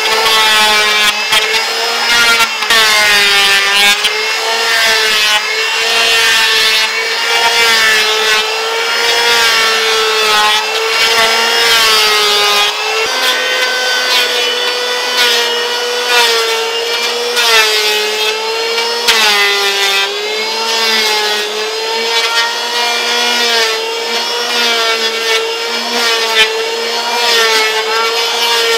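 Electric hand planer shaving a wooden plank: the motor runs at a high whine whose pitch sags and recovers again and again as the blades bite into the wood.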